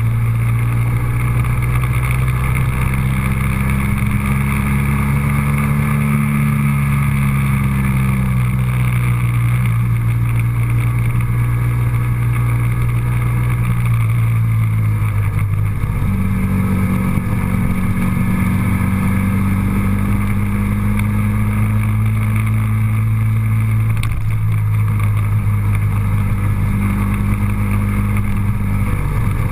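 Vehicle engine running steadily, its pitch drifting up and down and shifting noticeably about halfway through.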